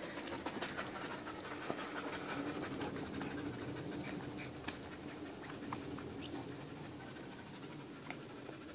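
A dog panting quietly, with light scuffling and small clicks from two dogs playing on sofa cushions.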